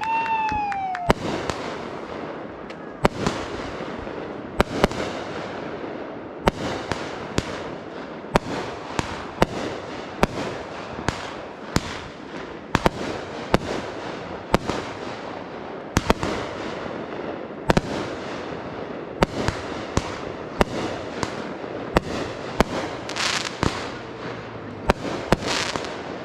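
Fireworks going off in quick succession: a steady run of sharp bangs, about one or two a second, over continuous crackling. A whistling tone falls away and ends about a second in.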